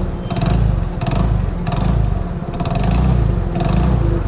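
Hero Passion Pro's single-cylinder four-stroke engine running with a regular tak-tak knocking clatter. The mechanic traces the knock to a loose cylinder-head nut.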